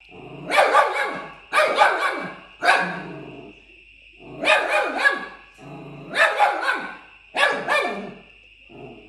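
Fox terrier puppy barking in short, sharp bursts, about seven of them, with a longer pause near the middle.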